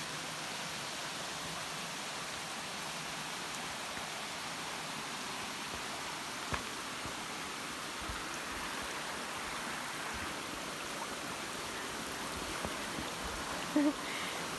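Shallow mountain stream running over rock slabs, a steady rush of water. A single sharp knock comes about halfway through, and a brief louder sound near the end.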